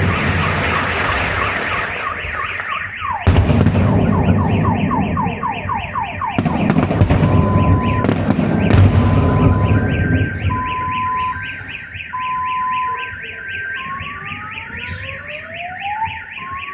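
A car alarm cycling through its siren patterns: rapid pulsing, then repeated falling sweeps, a two-tone beep, and rising sweeps near the end. Under it are the rumble and sharp bangs of fireworks, which die away about ten seconds in.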